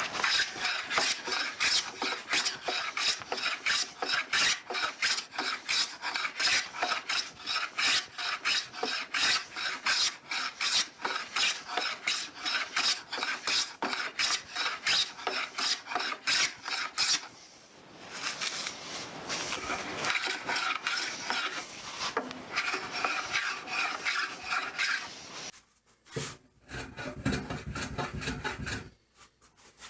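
Stanley No. 3 Bailey smoothing plane shaving a small pine 2x4 block: a run of quick short strokes, a few a second, then a stretch of longer continuous passes, stopping about four seconds before the end, after which only a few light knocks are heard.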